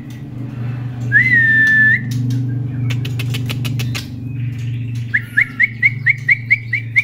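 Young male white-rumped shama (murai batu) singing in a cage: one long held whistle about a second in, then near the end a quick run of about ten short rising whistled notes. Between them come a string of sharp clicks as the bird hops about the cage, over a steady low hum.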